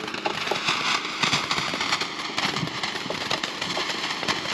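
Ground fountain firework spraying sparks: a continuous hiss dotted with rapid crackling pops.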